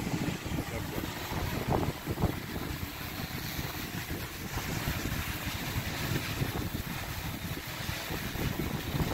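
Strong gusty wind buffeting the microphone in uneven low rumbles, over the hum of a large multirotor drone's propellers as it hovers in the wind.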